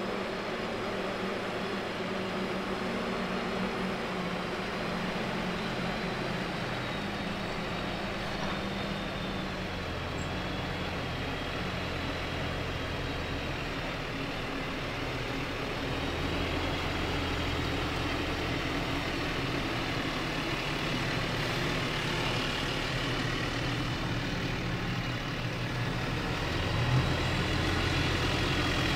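Fendt 942 tractor running under load while pushing chopped alfalfa up a silage pile with a push-off blade, its engine steady and growing louder as it comes closer, with a faint high whine above the engine note.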